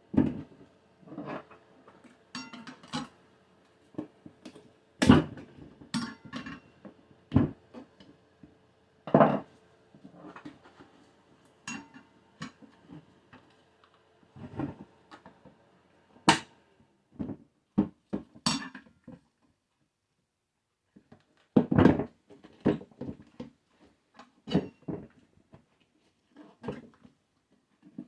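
Steel tire irons clinking and knocking against a motorcycle wheel rim and rim protectors as the tire bead is levered over the rim: irregular sharp clanks and taps, with a pause of a couple of seconds past the middle.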